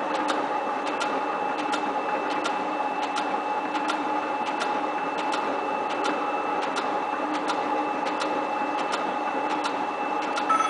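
7305T metal shaping machine running steadily while planing metal, with a constant hum and sharp clicks about twice a second. A new high ringing tone joins near the end.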